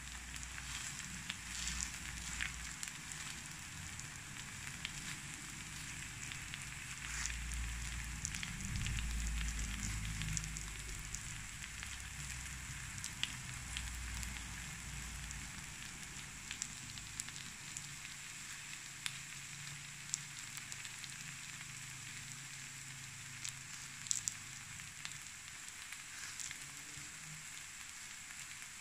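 Takoyaki batter sizzling and crackling in the wells of a takoyaki pan: a steady frying hiss scattered with small pops.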